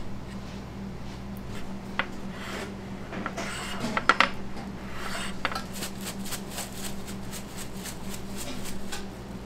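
Metal spoon scraping and clinking against a square metal Detroit-style pizza pan as tomato sauce is spread over the crust, with a few sharp clinks about four seconds in, over a steady low kitchen hum.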